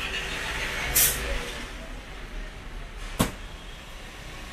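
A short loud burst of noise about a second in, then a single sharp knock about two seconds later, over a low steady hum.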